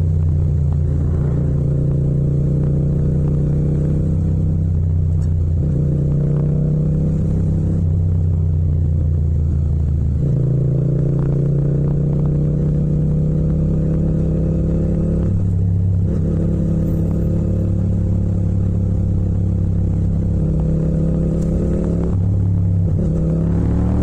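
Yamaha MT-07's 689 cc parallel-twin engine running under way. Its note climbs slowly and drops back several times, and near the end it revs up sharply under hard acceleration.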